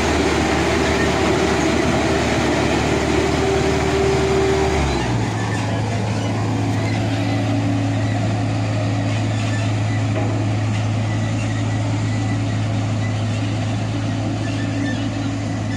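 Road roller engine running steadily, its hum stepping up to a higher steady pitch about five seconds in and holding there.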